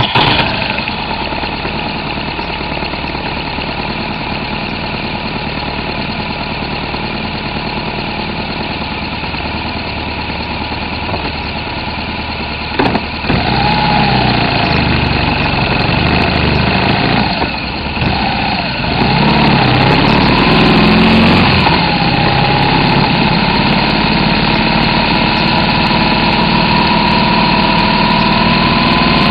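BMW R1200RT's boxer twin engine idling, with a sharp clunk about 13 seconds in. It then pulls away, the engine note rising and falling with the throttle before climbing steadily near the end.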